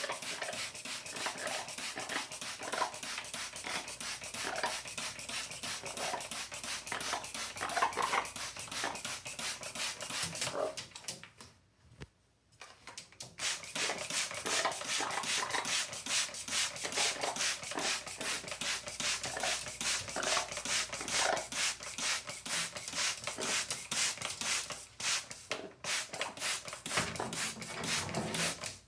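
A parrot bathing in a tub, splashing and fluttering in the water in a rapid, continuous spatter. The splashing stops for about a second and a half near the middle, then resumes.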